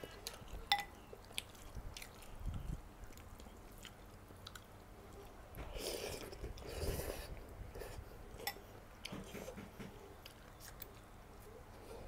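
Close-miked eating of beef noodle soup: a metal fork and spoon click against the ceramic bowl early on, one click ringing briefly. A louder stretch of slurping and chewing noodles comes about six seconds in, and a few light utensil taps follow.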